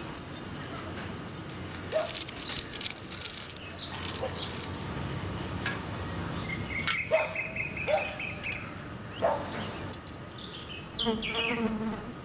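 Outdoor ambience of insects buzzing, with a fast pulsed trill about six seconds in and a few short falling chirps near the end. Scattered light clicks and knocks come from small objects being handled and set down on a wooden table.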